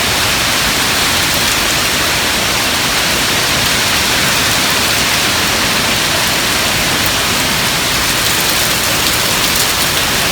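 Heavy thunderstorm rain coming down hard in a dense, steady hiss that keeps an even level throughout.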